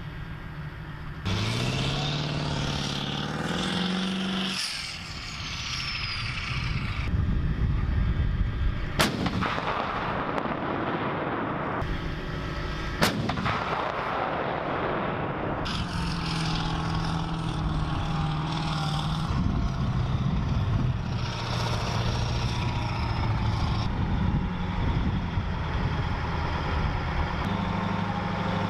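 M109A7 Paladin 155 mm self-propelled howitzer firing twice, about four seconds apart, each a sharp blast followed by a long rumbling echo. Before the shots, a tracked vehicle's engine revs with rising pitch; after them, a heavy engine runs steadily.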